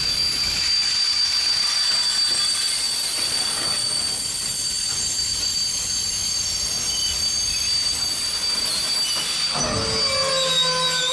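Heavy train rolling past on the rails with a steady high-pitched wheel squeal over the running noise, and a knock from the wheels near the end.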